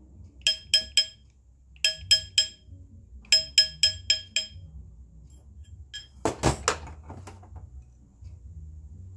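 Hammer tapping a gold ring on steel to stretch it up to size: quick groups of three or four light strikes, each ringing with a bright metallic tone. About six seconds in there is a brief scraping noise.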